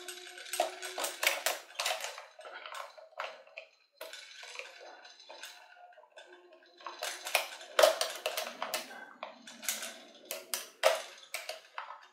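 Plastic battery cover of a dog coin-bank toy being pushed and snapped into place: a run of irregular sharp plastic clicks, taps and rattles.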